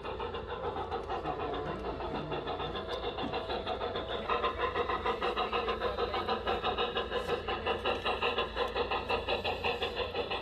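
A garden-scale model steam locomotive chuffing steadily, about four beats a second, as it hauls a train of log cars. It gets louder about four seconds in as it comes closer.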